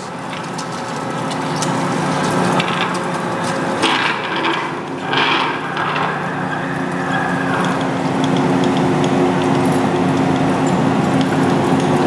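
Large American engine lathe running, its boring bar cutting metal inside a workpiece on the spinning faceplate under a stream of coolant: a steady machine hum under the noise of the cut, with two brief harsher bursts about four and five seconds in.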